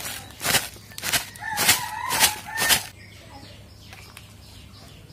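Plastic packet of vermicelli crinkling in repeated strokes, about two a second, as it is shaken out over a bowl, stopping about three seconds in. A rooster crows in the background about a second and a half in.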